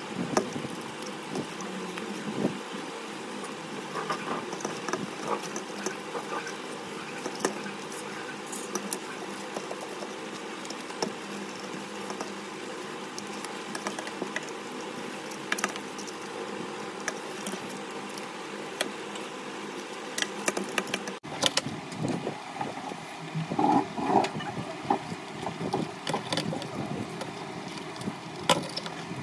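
Scattered light clicks and rustles over a steady background hum; the background changes abruptly about two-thirds of the way through, followed by a cluster of louder clicks.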